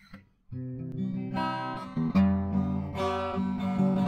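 Yamaha APX acoustic guitar being strummed, the chords starting about half a second in.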